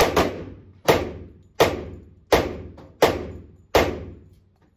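Glock 34 9mm pistol fired in a steady string of about six shots, one roughly every 0.7 seconds, each ringing off in the echo of an indoor range.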